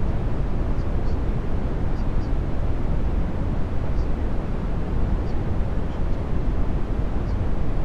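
A steady, low rumbling noise bed of unchanging level, with faint short high chirps every second or so.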